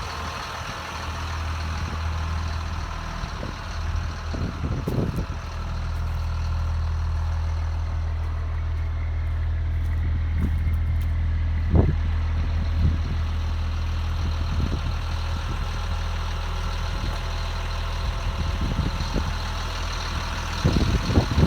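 Blue Bird Vision school bus diesel engine idling steadily with a low, even hum, with a few short knocks over it, the sharpest about twelve seconds in.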